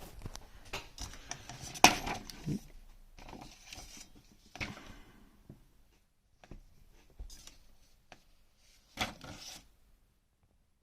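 Small metal parts of a disassembled Rosengrens 32CK2 disc-detainer lock being handled: irregular clicks, light rattles and scrapes, the loudest a sharp click about two seconds in, then fading out near the end.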